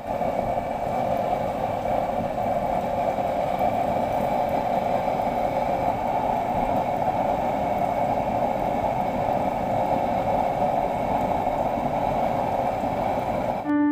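Homemade waste-oil burner stove running: a steady rushing noise that cuts off suddenly near the end.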